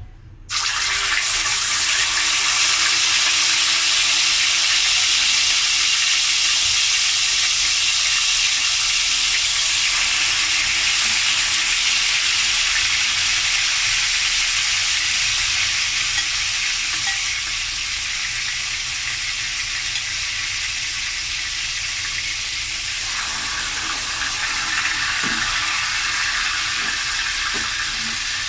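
Marinated pork chops frying in hot oil in a pan: a loud sizzle that starts suddenly about half a second in as the meat goes into the oil, then runs steadily and eases a little after the middle.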